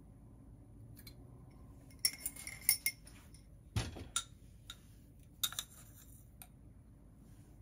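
Metal measuring spoons clinking together and against a glass bowl as sugar is tipped and tapped off: a quick run of small clinks, one heavier knock with a dull thud, then a few scattered light taps.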